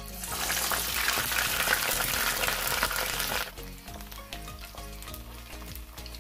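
Ube chunks dropped into hot oil in a frying pan, setting off a loud sizzle that falls away about three and a half seconds in to a softer, steady frying hiss.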